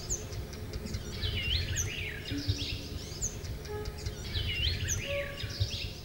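A songbird singing: a short phrase of chirps with a hooked, rising whistle, repeated about every three seconds, with thin high notes between, over a low steady rumble.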